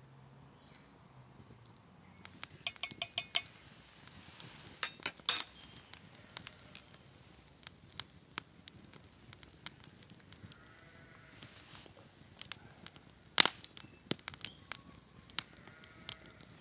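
Wood campfire crackling with sharp pops, the loudest a quick run of them about three seconds in and a single crack a little past the middle. A short animal call sounds just after ten seconds.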